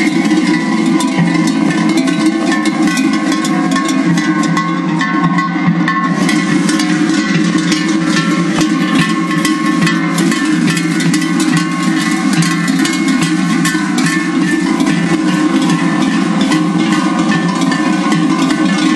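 Many sheep bells clanking together without a break as a large flock moves along, a dense jangle of quick strikes over a steady mix of bell pitches.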